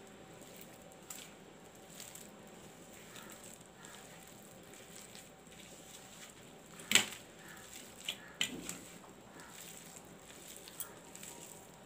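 Hand kneading a soft mixture of grated boiled potato, cauliflower and gram flour in a steel plate: faint squishing and rubbing, with a sharp click about seven seconds in and a few fainter ones after it.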